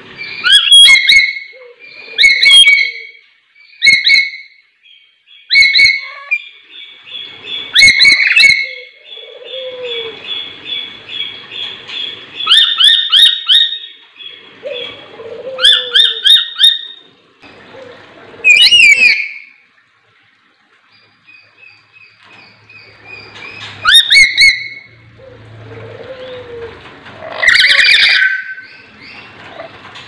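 Caged lories giving loud, shrill squawks repeated every second or two. Rapid chattering runs from about ten to fourteen seconds in, with a brief lull around twenty seconds.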